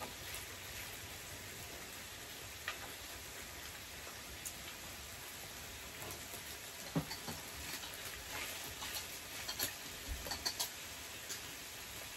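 Meat sizzling steadily on a tabletop grill plate, with scattered light clicks of tongs and chopsticks against the grill and dishes.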